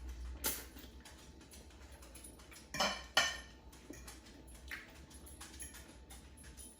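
Cutlery clinking and scraping against a plate during a meal, with two sharper clinks close together about three seconds in.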